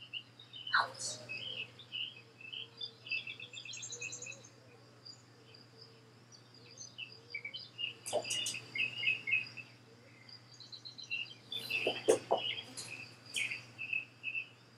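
Woodland birds chirping in short repeated calls, with a quick trill a few seconds in, over a steady high insect trill. A few sharp clicks and knocks cut through, the loudest cluster about twelve seconds in.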